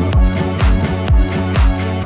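Background music with a steady beat of about two strong low beats a second and quick high ticks between them.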